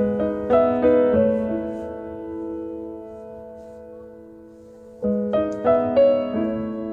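Solo piano background music: a few notes struck in the first second are left to ring and fade slowly, then a new phrase of notes begins about five seconds in.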